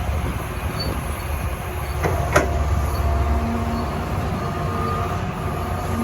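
Excavator running with a steady low engine rumble, with a sharp knock a little over two seconds in.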